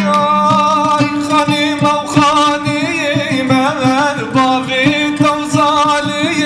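A man singing a classic Kurdish song, the voice held in long wavering, ornamented lines. A plucked string instrument accompanies him with a steady run of strokes over a low sustained drone.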